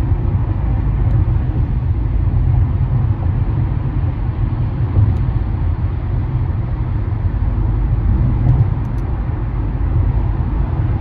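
Steady low rumble of a car cruising at freeway speed, mostly tyre and road noise on concrete pavement, with no rise or fall in engine pitch.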